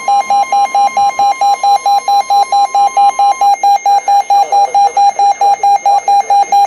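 Electronic alert alarm beeping rapidly, about four buzzy beeps a second, sounding an incoming severe weather warning, typical of a weather alert radio. A fainter steady tone underneath stops about halfway through.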